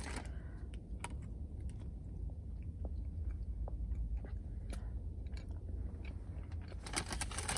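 A person chewing a bite of soft cinnamon coffee cake: small wet mouth clicks throughout, with a cluster of louder ones near the end, over a steady low hum.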